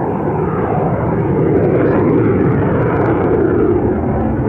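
Jet noise from an F-16AM Fighting Falcon's single Pratt & Whitney F100 turbofan as the fighter flies a display manoeuvre, loud and steady.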